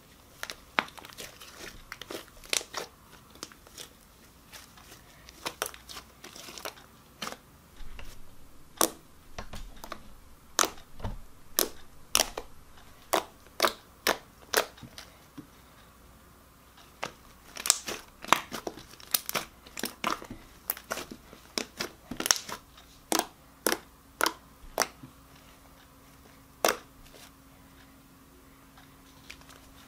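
Fluffy foam slime being stretched and kneaded by hand, giving irregular sharp sticky pops and crackles in flurries, with a short lull about halfway and stopping a few seconds before the end.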